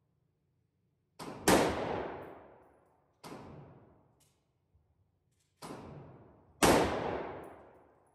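Gunshots at an indoor shooting range: about five shots at irregular intervals, two of them much louder than the rest, each trailing off in echo off the range's concrete walls.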